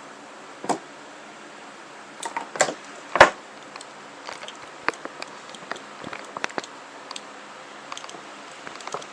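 Wiring-harness connector and wires being handled: scattered plastic clicks and knocks, the loudest about three seconds in, over a faint steady hum.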